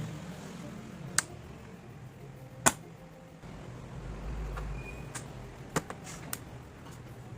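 A handful of sharp clicks and knocks from computer parts being handled and fitted during a PC build, the loudest about two and a half seconds in, over a low steady hum.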